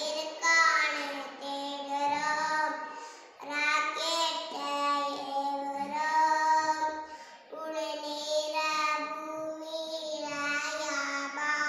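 A young girl singing solo in long held notes, breaking briefly between phrases twice.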